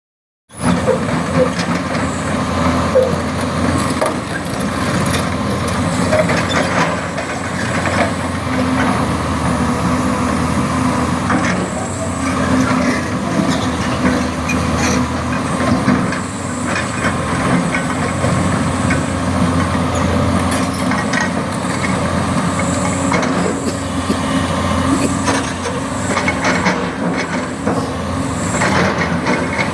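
Doosan 300 LCA crawler excavator's diesel engine running steadily, with scattered knocks and scrapes from the bucket working rock and earth.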